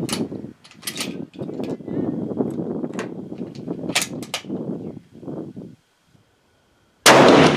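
Rustling and several sharp clicks of handling, then, about seven seconds in after a moment of dead silence, a single loud rifle shot from a Savage 10FP-LE chambered in .308 Winchester.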